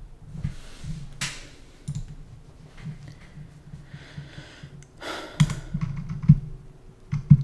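Computer keyboard typing and clicking: a few scattered keystrokes and taps, with a louder cluster of clicks about five to six seconds in.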